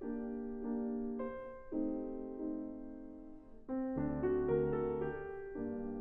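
Steinway & Sons concert grand piano played solo: slow sustained chords that change every second or so, with deeper bass notes joining for a louder, fuller stretch about four seconds in.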